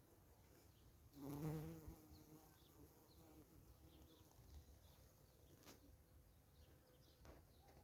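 A flying insect buzzing briefly past the microphone about a second in, its pitch wavering slightly. Faint high bird chirps sound now and then, and a single soft click comes later.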